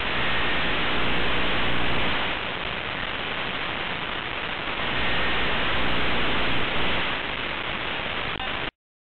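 Steady hiss like radio static, swelling louder twice, then cutting off suddenly near the end.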